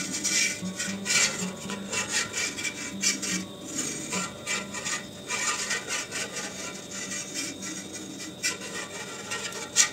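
Irregular scraping and rubbing strokes, about one or two a second: a thin metal skewer being worked through set curd and against a stainless-steel pot to cut the curd horizontally into cubes.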